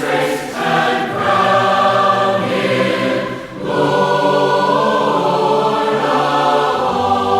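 Choir singing a hymn in harmony, chords held for a second or more each, with a short break between phrases about halfway through.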